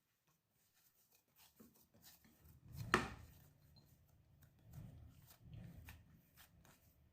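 Faint kitchen handling noises: light clicks and taps of utensils and dishes, with one sharp knock about three seconds in.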